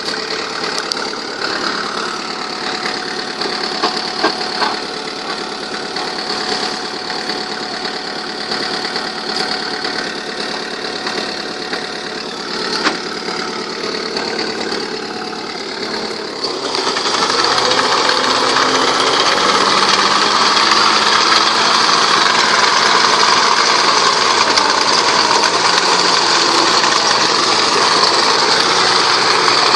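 Farm tractor's diesel engine running steadily as it pulls a mounted cassava-digging harvester through hard, cloddy soil. About 16 seconds in the engine gets noticeably louder and stays so.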